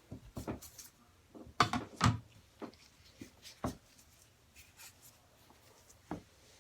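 Scattered taps, knocks and light scraping from handling, with two louder knocks about a second and a half to two seconds in.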